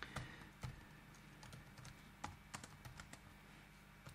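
Faint, irregularly spaced keystrokes on a computer keyboard as a short command is typed.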